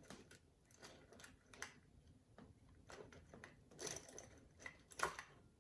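Faint clicks and scrapes of a flathead screwdriver prying apart the plastic halves of a Dodge key fob, with two sharper clicks about four and five seconds in.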